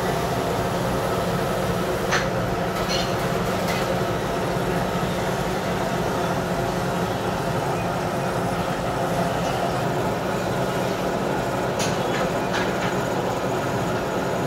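Gear hobbing machine running steadily, its hob cutting helical teeth into a gear blank: an even mechanical drone with a few brief ticks.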